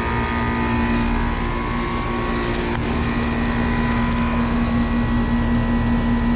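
Bryant Preferred Series central air conditioner's outdoor condensing unit running under full load: a steady compressor hum with the condenser fan's even whoosh. The owner thinks the compressor is louder than it used to be.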